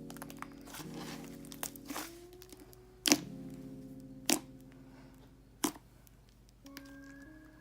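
Background music with sharp pops and crackles from thick slime being played with; three loud pops come a little over a second apart in the middle.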